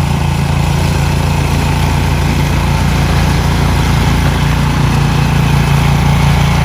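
Snowblower clearing a snow-covered walkway: its engine runs loudly and steadily, with a low, even drone under the noise of the snow being churned and thrown aside.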